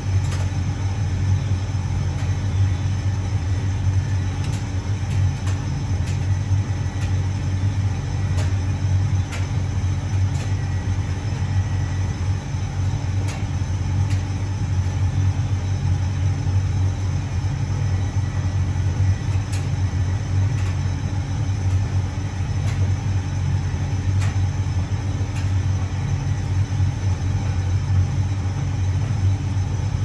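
Hotpoint 9327 vented tumble dryer running on low heat: a steady, even motor-and-drum rumble with a low hum. Faint light ticks come through now and then.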